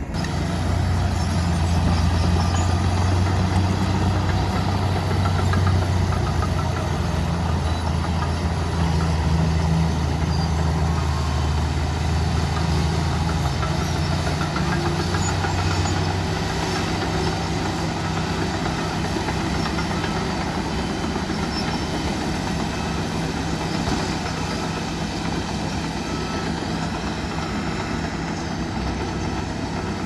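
LiuGong B160C crawler bulldozer's diesel engine running under load as it pushes earth: a steady, deep hum that is strongest for the first half and eases a little about sixteen seconds in.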